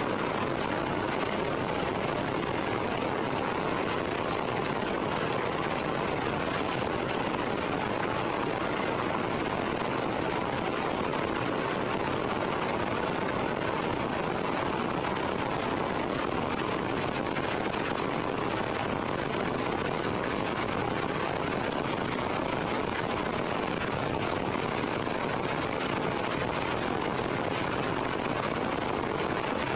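Heavy rain falling, a steady, even hiss that does not let up.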